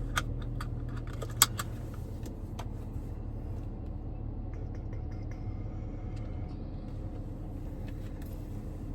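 Car engine idling, heard from inside the cabin, with a few sharp clicks in the first three seconds, the loudest about a second and a half in.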